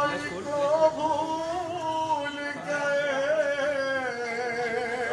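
A man singing a noha, the Shia lament, unaccompanied, drawing out one long wavering line that slowly falls near the end.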